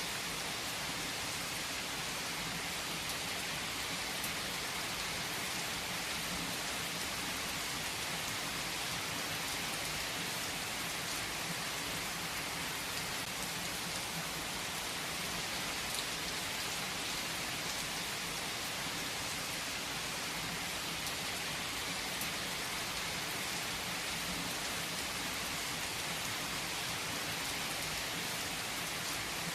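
Steady rain falling, an even hiss with a few faint drop ticks standing out.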